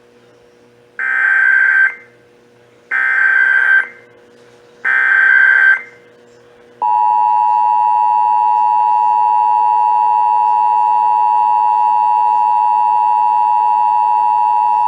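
Emergency Alert System test tones: three one-second bursts of SAME header data tones, then, about seven seconds in, the steady two-tone EAS attention signal (853 Hz and 960 Hz sounded together).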